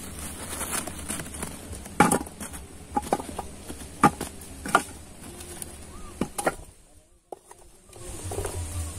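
Foraged wild tubers dropped by hand into a metal saucepan, a handful of separate knocks a second or so apart, with the sound cutting out briefly near the end.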